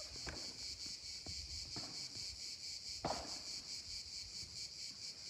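Cicadas droning steadily in a high, finely pulsing chorus, with padel rackets striking the ball a few times, the loudest hit about three seconds in.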